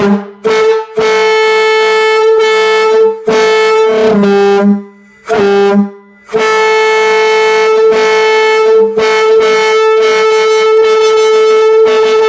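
Large train air horn blown from a compressed-air tank: a string of short blasts, a couple of longer ones where the pitch drops to a lower, rougher note as the air is played to make different sounds, then one long steady blast of about six seconds, very loud.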